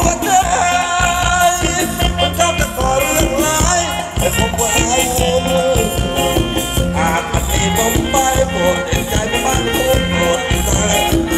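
Live band playing Thai ramwong dance music, a steady beat under a melody.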